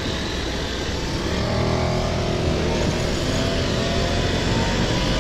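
Steady low rumble of a car's idling engine, heard from inside the cabin, with faint wavering tones over it from about a second and a half in.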